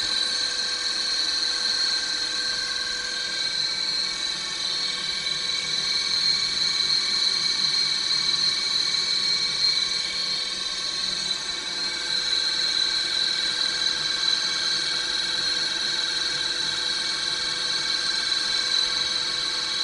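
Drill press electric motor running steadily on a frequency inverter, with a constant high-pitched whine and no load.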